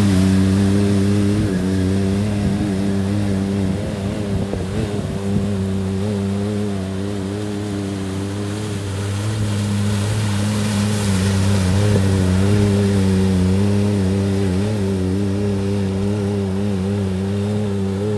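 Can-Am Maverick X3 side-by-side's three-cylinder engine running at a steady, slightly wavering pitch as it drives through a shallow river, with water splashing from its wheels.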